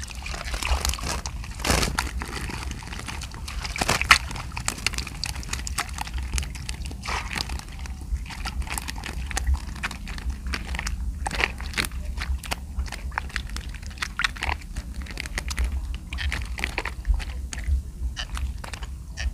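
Irregular crackling, clicking and rustling from the net and the fish catch being handled, over a steady low rumble of wind on the microphone.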